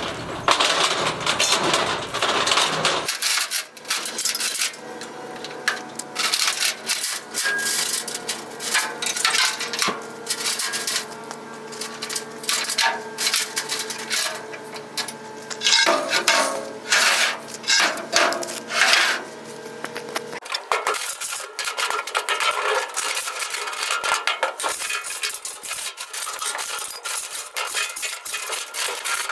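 Steel chain and hooks clinking and rattling as they are handled, with repeated metal clanks.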